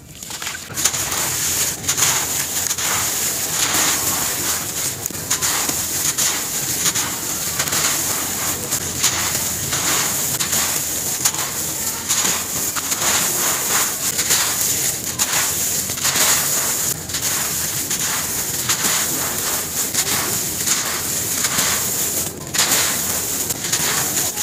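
Gritty sand shapes being squeezed and crumbled in the hands, a continuous dense crunching and crackling with grains trickling, played back sped up.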